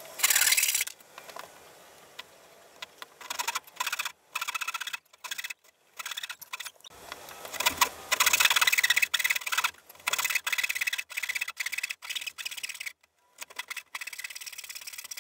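Hand saw cutting through the protruding end of a wooden breadboard end, trimming off its excess width: rasping back-and-forth strokes in runs, with short pauses between them.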